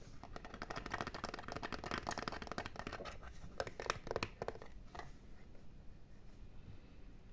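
Fingernails scratching rapidly and closely on an object for a few seconds, then a handful of slower, separate strokes, after which it goes quieter.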